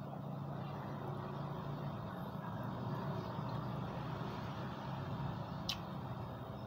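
Steady low engine hum of a motor vehicle running nearby, with an even rushing noise over it and one sharp click near the end.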